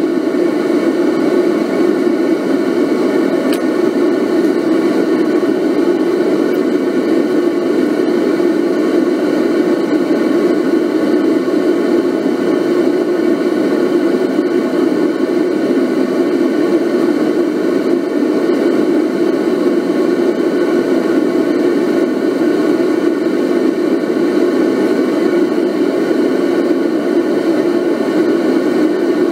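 A steady, loud, unchanging roar of running equipment, deep and even, with no breaks or changes in pitch.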